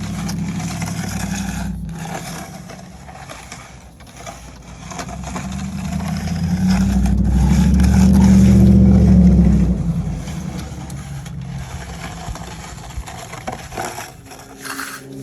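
An engine running with scraping and crunching noises, swelling louder for a few seconds in the middle, then easing back.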